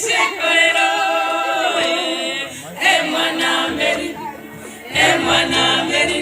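A group of voices singing together without instruments, in held, wavering phrases with a short pause around the middle.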